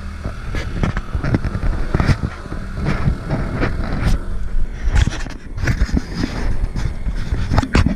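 Steady low hum of a running motor on a small boat, with many irregular knocks and bumps as the camera is handled and moved.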